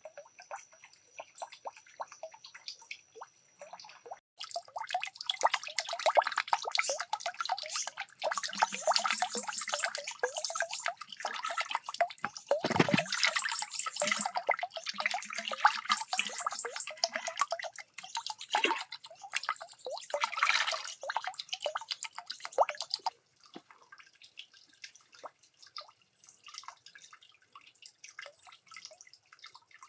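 Water poured from a clay pot splashing into a shallow channel of water for nearly twenty seconds, with lighter dripping and trickling before and after.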